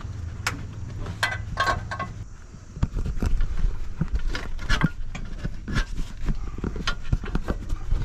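Hydraulic floor jack being worked under a pickup's cab, giving irregular metallic clicks and knocks as the cab is raised off a worn front cab-mount bushing. A low hum under the clicks stops about two seconds in.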